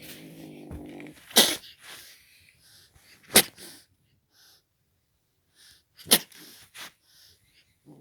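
A young pet growls low for about the first second and a half, then lets out three sharp, short bursts of breath, about one and a half, three and a half and six seconds in, with softer puffs between them.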